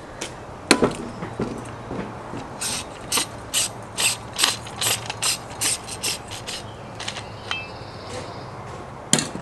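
A run of sharp, evenly spaced clicks, about two to three a second, as a propane torch head is handled and fitted to a blue propane cylinder.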